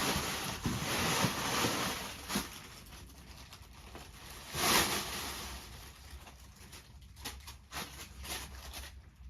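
Rustling and handling of packaging: cardboard boxes and plastic-bagged model kits being moved about, with a louder rustle about halfway through and a few light clicks.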